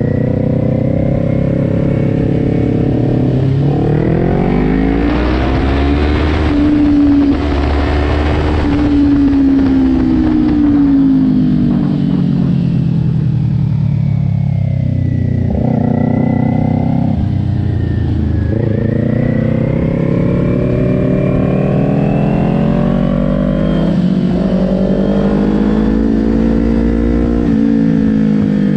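Kawasaki Ninja 400's parallel-twin engine heard from onboard, its revs rising and falling several times as the bike accelerates out of corners and slows into them. Wind rushes over the microphone, loudest while the revs are highest.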